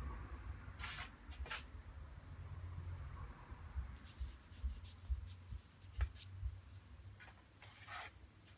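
A watercolour brush brushing and dabbing on paper in several short scratchy strokes, working white paint into a painted steam cloud.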